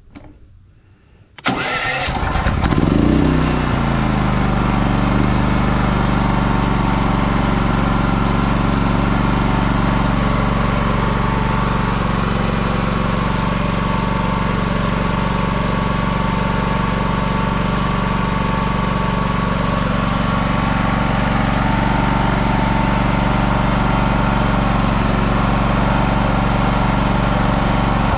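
Champion 100520 inverter generator's single-cylinder engine starting about a second and a half in, flaring briefly, then settling into a steady even run. It runs at the low speed the owner takes for eco mode, alongside an error light.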